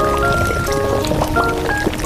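Background music: a melody of short held notes stepping up and down over a steady low beat.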